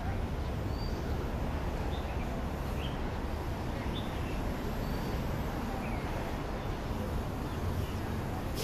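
Outdoor city ambience: a steady low rumble with short, high bird chirps scattered through it, about one a second.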